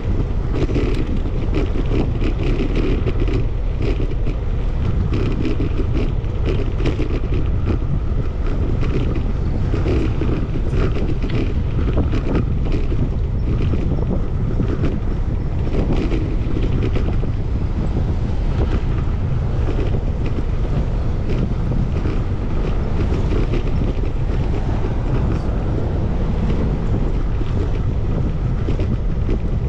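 Wind buffeting the microphone of a camera riding on a moving bicycle: a steady low rumble, with many small clicks and rattles throughout.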